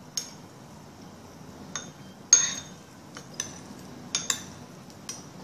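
Metal spoon and fork clinking against a ceramic rice bowl: about nine separate sharp clinks with a short ring, the loudest a little over two seconds in.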